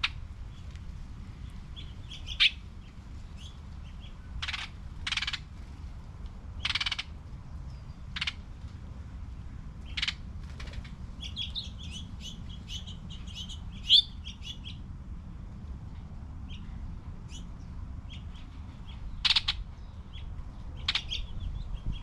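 Songbirds calling: a few harsh, rasping calls, then a run of quick high chirps and scattered sharp notes, over a steady low background rumble.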